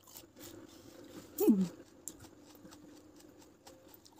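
Close-up eating sounds: chewing and faint clicks of a metal fork and spoon against a paper cup and bowl. About a second and a half in comes one short vocal sound falling in pitch, the loudest thing in the stretch.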